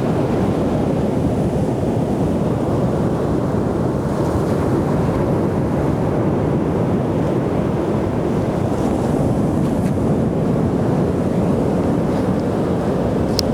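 Ocean surf: a steady, even wash of breaking waves rolling onto the beach.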